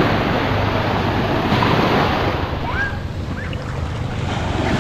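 Small sea waves breaking and washing up the sand at the water's edge, a steady rushing surf, with wind buffeting the microphone.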